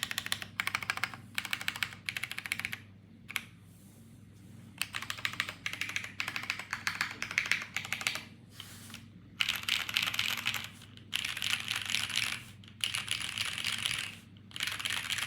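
Typing on a tenkeyless mechanical keyboard with Cherry MX Brown tactile switches in a top-mount aluminium plate, under GMK doubleshot ABS keycaps. The keys clack in rapid runs broken by short pauses, and the runs grow denser and longer in the second half.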